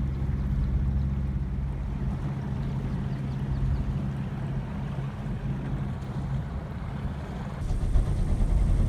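A small sailboat's inboard engine running steadily under way, with wind and water noise over it. About three-quarters of the way through, the engine rumble becomes louder.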